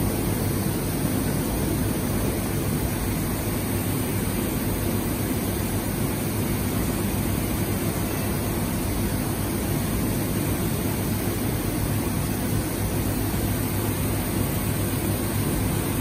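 Steady rushing air noise with a low hum from a ceramic glaze spray booth while a robot arm sprays glaze: the booth's air extraction and the spray gun running continuously.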